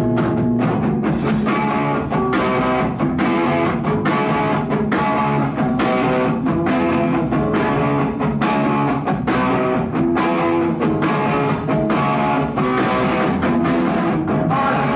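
Punk rock band playing without vocals: electric guitar chords over bass and a drum kit keeping a steady beat.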